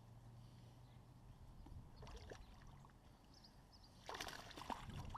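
Mostly near silence, with a few faint clicks about two seconds in and a short burst of knocks and rustling about four seconds in.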